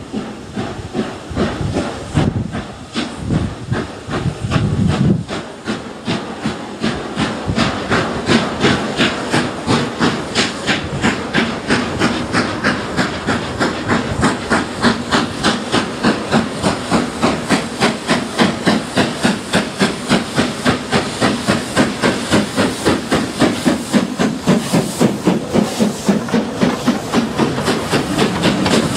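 LNER B12 class 4-6-0 steam locomotive No 8572, a two-cylinder engine, working a passenger train, its exhaust beating about four times a second and growing louder as it approaches and passes close by.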